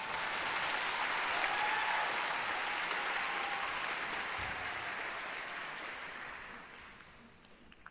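Audience applauding in a large concert hall: a full round of clapping that holds for about six seconds, then thins out and dies away near the end.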